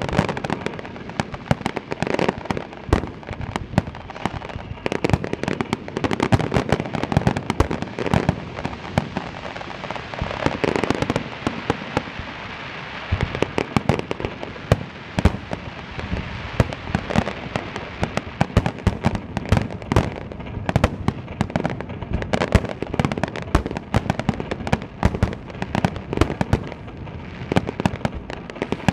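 Japanese aerial firework shells fired as a rapid-fire star mine barrage: many booming bursts in quick succession, overlapping with a constant crackling and without a break.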